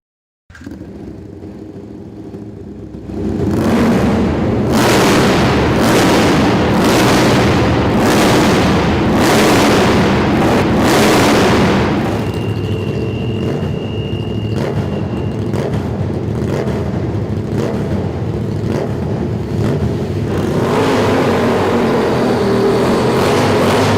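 KTM 1290 Super Duke's big V-twin engine running, then revved hard in a string of throttle blips about once a second, settling into a steadier run later on.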